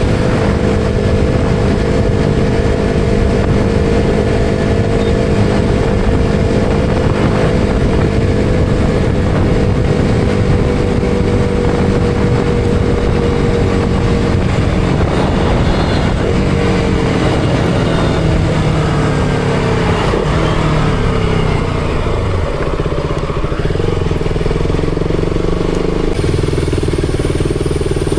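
KTM Duke 200's single-cylinder four-stroke engine running at a steady speed, with wind and road noise. About halfway through its pitch falls in several steps as the bike slows, and it settles to a lower, steady note near the end.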